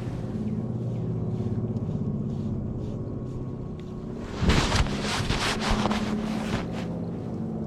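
A boat motor runs with a steady low hum, and a brief, loud noisy burst breaks in about four and a half seconds in.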